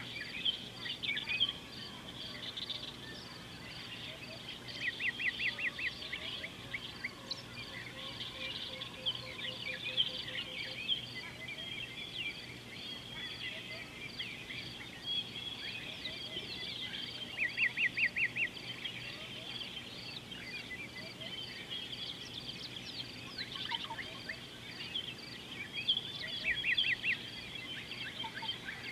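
Wild birds calling and chirping around an African river. Three times, one bird gives a fast rattling run of evenly repeated notes that stands out above the rest, over a steady high-pitched pulsing.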